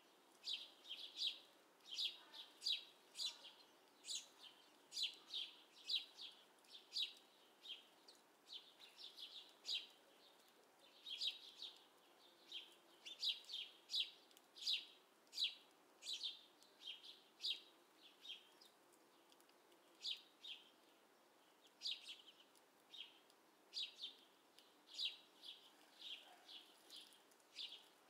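Small songbirds chirping: short high chirps, several a second, in runs with brief pauses.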